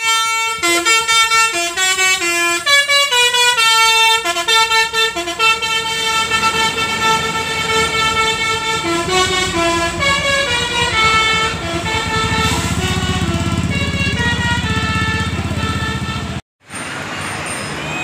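Bus's multi-tone basuri (telolet) horn playing a fast tune, its notes stepping from pitch to pitch several times a second. In the last few seconds the bus engine's low rumble grows under it, and the sound cuts off abruptly near the end, giving way to even street noise.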